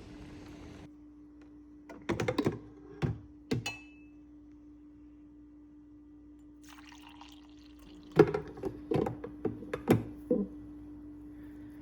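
Household handling sounds: a few sharp knocks and clinks, one ringing briefly like a cup or glass, then a stretch of liquid being poured and more clatter, over a steady low hum.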